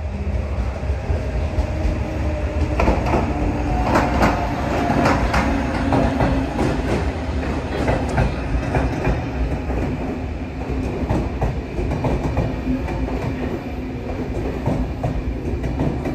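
Train hauled by a Bombardier TRAXX electric locomotive passing, its wheels clattering over rail joints over a low rumble and a steady hum. The clatter is thickest from about three to nine seconds in.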